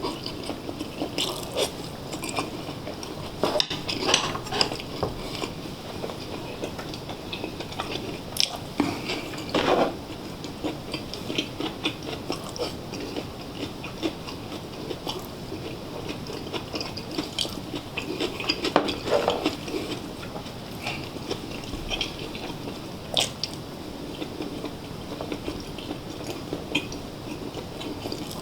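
Close-miked eating: a man chewing food, with many short clicks and taps of utensils against dishes.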